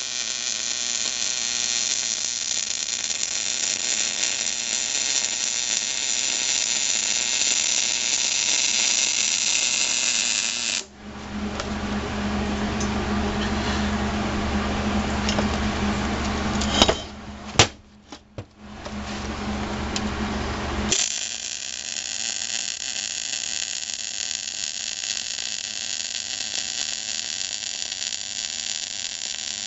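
MIG welding arc crackling and sizzling steadily as a bead is run on steel tube. About a third of the way in it stops and a different steady machine sound with a low hum takes over, followed by a few sharp knocks. The welding crackle then resumes and runs on.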